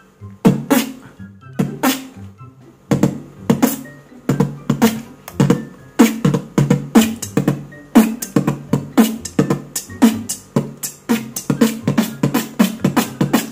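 Human beatbox pattern built on the double kick and double PF snare: a fast run of sharp kick- and snare-like mouth hits in an uneven groove, getting denser toward the end.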